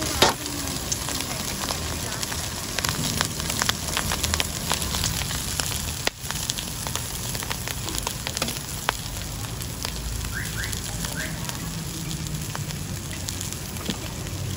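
Basil stir-fry sizzling and crackling in a hot wok, with a sharp clack just after the start as chopped vegetables and basil are tipped in.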